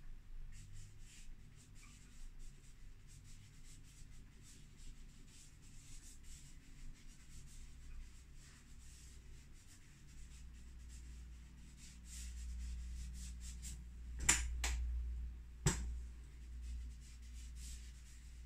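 A drawing stick scratching and rubbing across a painting board in many short strokes, with a low rumble under the later strokes. Three sharp clicks about three-quarters of the way through are the loudest sounds.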